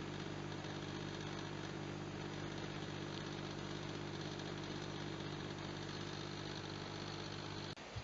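AQUA refrigerator-freezer running with a steady hum made of several pitched tones. The hum stops abruptly near the end.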